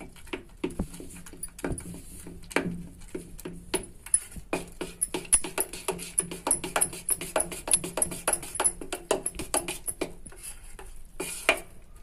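Metal spoon beating besan batter in a stainless-steel bowl: quick repeated clinks and scrapes of the spoon against the bowl with wet stirring, several a second, busiest in the middle. The batter is being beaten smooth so that no lumps form.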